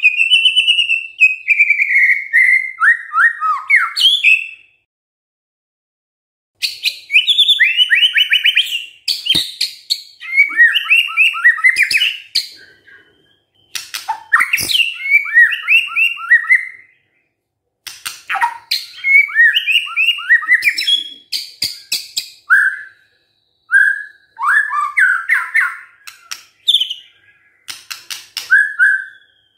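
White-rumped shama singing in several loud bursts of a few seconds each, with short pauses between. The song mixes clear sliding whistles with rapid chattering trills.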